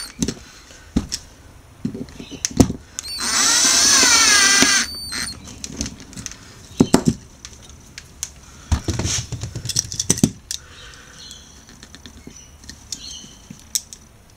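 Small power drill running for about a second and a half, its pitch wavering as the bit grinds down the head of a rivet on a die-cast toy car. Scattered clicks and knocks come before and after it.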